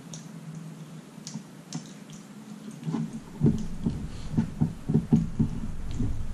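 A hand mixing rice and curry on a steel plate, with soft clicks and squishes. About halfway in a low rumble comes in beneath a run of dull thumps, about three or four a second.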